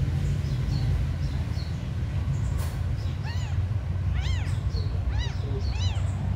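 Newborn kittens mewing: a few faint high squeaks at first, then four louder, high cries that rise and fall in pitch, from about three seconds in. A steady low rumble runs underneath.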